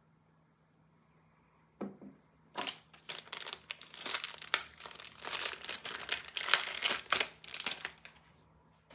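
Thin clear plastic bag crinkling loudly as it is pulled open by hand, a dense crackle that starts about two and a half seconds in and stops shortly before the end. A single light knock comes just before it.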